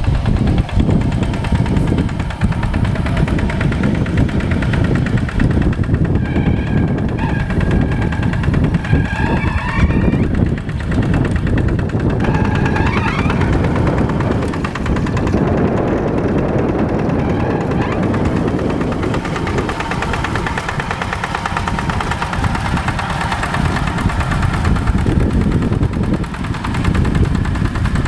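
Paddy-field tractor's diesel engine running steadily with a rapid pulsing beat, working in wet mud.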